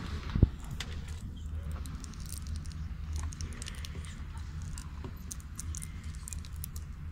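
Indoor tennis arena ambience: a steady low hum of the hall with scattered faint clicks and taps, and one sharp knock about half a second in.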